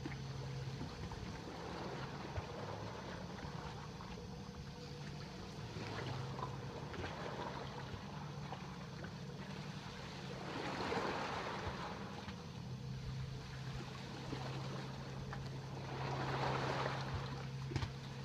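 Seawater sloshing and lapping below, swelling twice, over a steady low mechanical hum.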